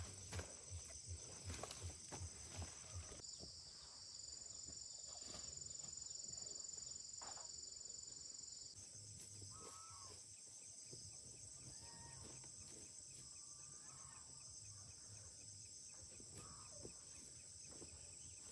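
Insects trilling steadily in a high chorus, the pitch of the chorus shifting twice. Faint footsteps in the first few seconds, and a few faint short animal calls in the second half.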